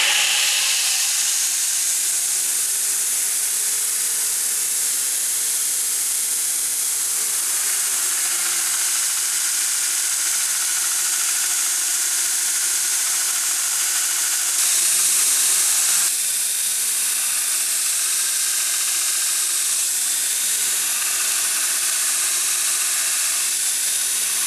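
Belt grinder rough grinding a steel knife guard against its abrasive belt: a steady, loud grinding hiss over the faint tone of the machine, which wavers in pitch as the work is pressed in. It grows louder for a moment about halfway through.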